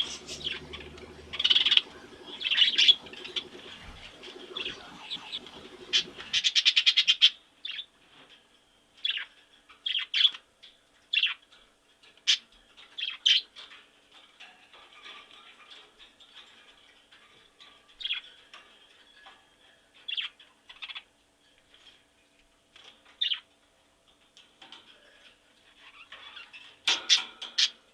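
Pet budgerigars chirping and warbling. About six seconds in comes a dense run of rapid chirps. After that, short single chirps follow roughly once a second, with a busy burst of chirping near the end.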